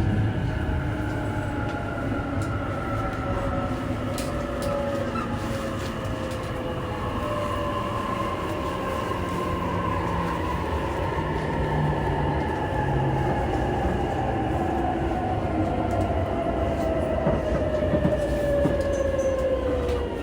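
E233-3000 series electric train running on the rails, its traction motor and inverter whine sliding slowly down in pitch over a steady wheel rumble as the train slows on its approach to a station stop.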